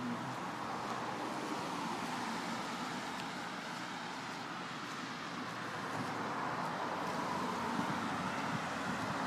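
Steady road traffic noise, swelling slightly in the second half.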